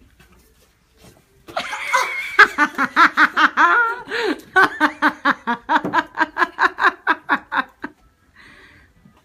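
A person laughing hard, a long run of rhythmic laughter bursts about five a second, lasting some six seconds before dying away.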